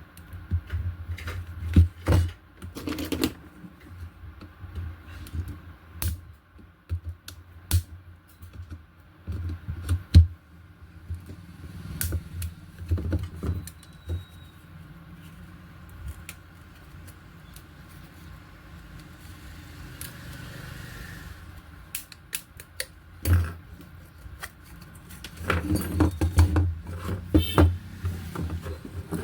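Irregular clicks, taps and knocks of hands handling small parts and tools at a repair bench, over a low steady hum. The clicks come thicker and louder near the end.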